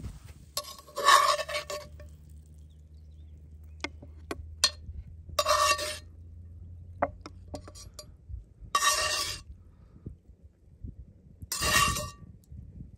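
Metal spoon scraping against a cast-iron wok with a ringing clink as vegetables are scooped out, four times a few seconds apart, with a few light clicks between.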